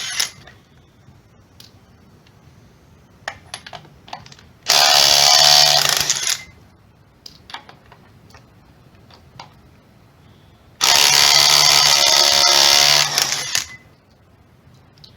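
Dewalt DCF902 3/8-inch 12-volt impact wrench hammering in two bursts, the first about two seconds long and the second about three, with light clicks and taps between them. A previous burst cuts off right at the start.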